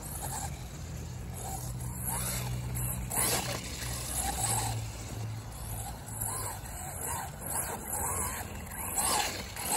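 Wltoys 104001 RC truck on 6S LiPo power driving on rough grass, its electric motor and gears whining up and down in pitch as the throttle is worked.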